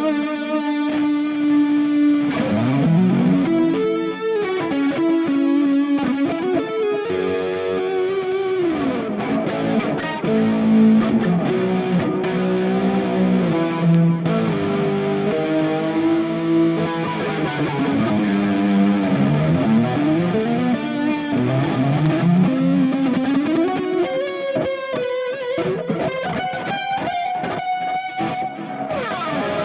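Electric guitar strung with new Elixir Optiweb 9–46 strings, played through effects with light distortion: a lead line of held notes with many bends and slides, turning to choppy strummed chords near the end.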